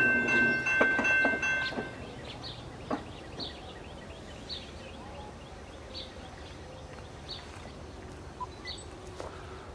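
Locomotive air horn sounding a steady chord, with a low rumble under it, that cuts off about two seconds in. Then quiet outdoor ambience with faint, short, high chirps about once a second.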